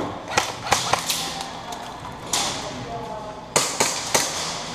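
Airsoft guns firing irregular single shots: about nine sharp cracks, several in quick pairs, the second half-dozen spaced out over a few seconds.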